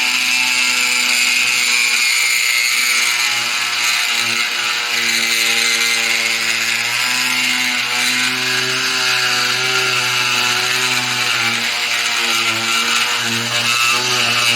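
Proxxon micro mill spindle running steadily with a Dremel cutter, milling a small flat on a rod; the motor's pitch wavers slightly as it runs.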